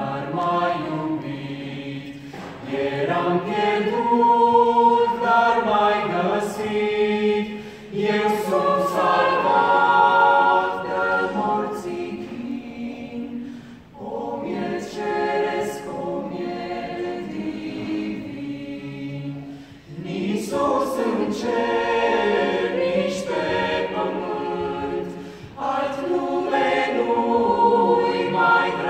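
Mixed choir of men's and women's voices singing a cappella, in sustained phrases separated by brief pauses every five or six seconds.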